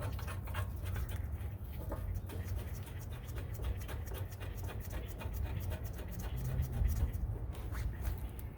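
Hand ratchet clicking rapidly as the hub-assembly bolts are run in, over a steady low rumble.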